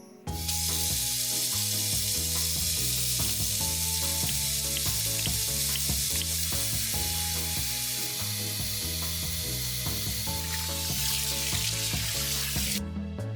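Water running steadily from a tap, a loud even hiss that cuts off abruptly near the end, over background music with a stepping bass line.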